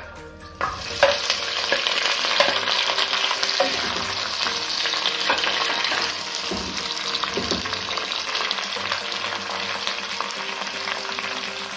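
Sliced onion, green chillies and curry leaves dropped into hot oil in a pan: a loud sizzle starts suddenly about half a second in and keeps on, easing slightly after a few seconds.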